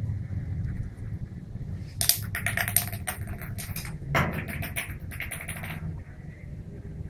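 A puppy's claws clattering on a tiled floor as it scrambles about: two runs of rapid clicks and rattles, starting about two seconds in, with a louder knock partway through. A low steady hum runs underneath.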